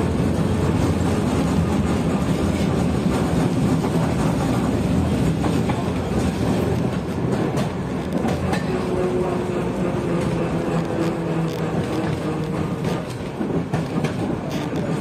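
A 1987 KTM-5 (71-605) tram running along the track, heard from inside the passenger cabin: a steady low rumble of the running gear with wheels clicking over rail joints. A faint steady whine joins for a few seconds in the middle.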